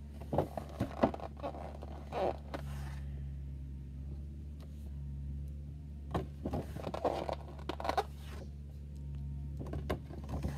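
A cardboard toy box and its plastic packaging being handled, heard as bursts of rustling, scraping and light knocks, the sharpest a click about a second in, over a steady low hum.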